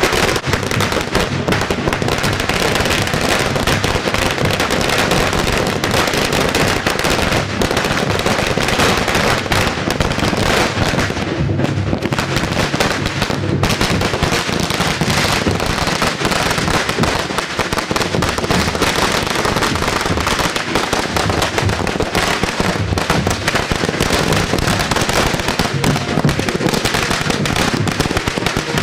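Fireworks and firecrackers going off in a dense, continuous crackle of rapid pops.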